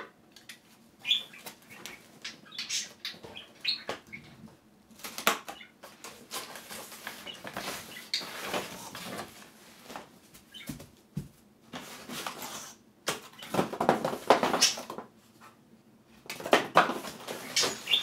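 Unpacking a cardboard box of flat-pack panels: cardboard and packing rustling and scraping in irregular bursts as white boards are pulled out and laid down, with a few sharper knocks.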